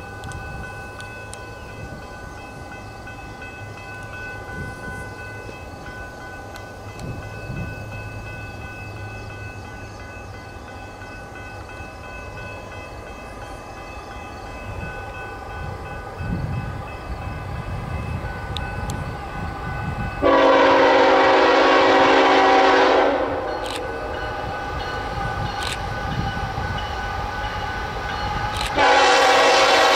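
Norfolk Southern freight train approaching: a low diesel rumble builds, then the lead locomotive's air horn sounds one long blast about two-thirds of the way in and starts another near the end.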